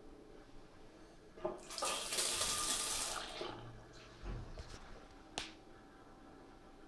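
Water running briefly from a chrome basin tap into an Armitage Shanks ceramic hand basin, a splashing rush of under two seconds starting about two seconds in. A few knocks and one sharp click follow.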